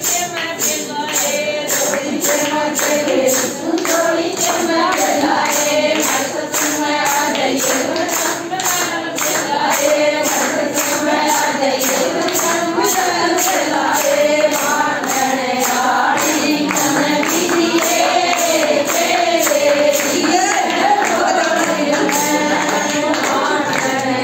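A group of devotees singing a Hindu bhajan kirtan together, the melody rising and falling, over a steady fast beat of clapping or hand percussion.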